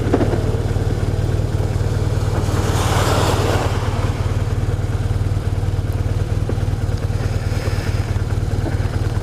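BMW R1200RT's boxer twin engine running steadily under way, heard through the helmet mic under a constant rush of wind and road noise. A swell of rushing noise rises and fades about three seconds in.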